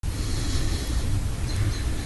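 Wind buffeting the microphone: a steady low rumble under a rushing noise, with two faint high chirps near the end.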